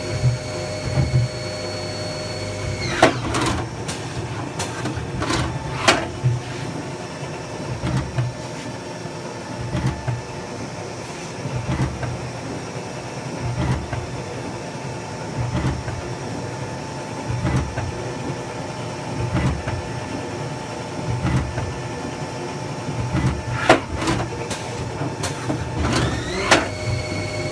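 Haas SL-10T CNC lathe running: a high steady whine falls away about three seconds in, leaving a lower steady machine tone, and rises again near the end, as the spindle slows and then spins back up. Several sharp clunks come just after the first drop and again just before the rise, as the tool turret moves and indexes.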